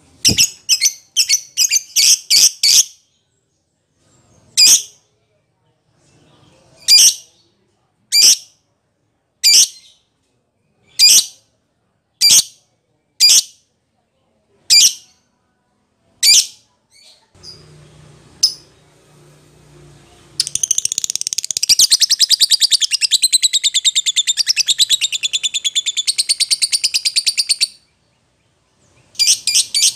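Lovebird giving loud, shrill calls: a quick run of about seven at the start, then single sharp calls every second or so, then a long unbroken rapid chattering trill for about seven seconds in the latter part. The agitated calling of a fighter lovebird, used to provoke other lovebirds into calling back.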